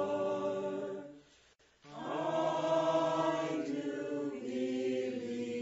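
Choir singing slow, held chords. It breaks off for about half a second a little over a second in, then comes back on a new chord.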